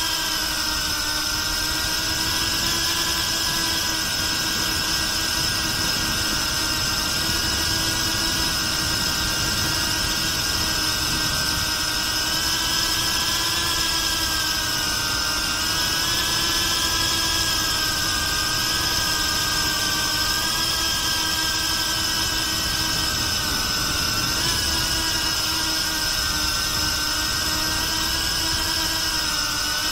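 BetaFPV Pavo360 drone's brushless motors and propellers running in flight, heard from on board: a steady whine made of several tones, whose pitch dips and rises a little as the throttle changes.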